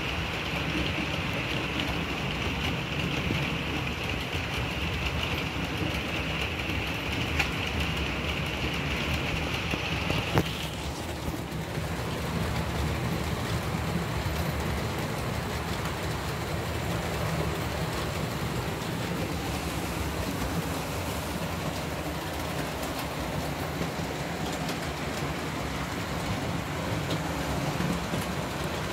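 HO-scale model trains running on track under digital control: a steady low motor hum with a continuous rattle of wheels on rail. A higher whine stops after a click about ten and a half seconds in.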